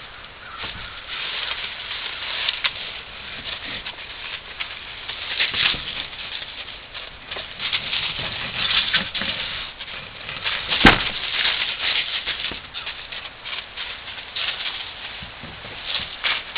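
Dry fallen leaves and grass rustling and crackling as a wild rabbit runs around and a person steps about in them. One sharp knock about eleven seconds in.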